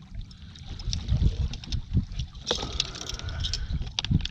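Wind rumbling on the microphone, with a few knocks about halfway through and near the end.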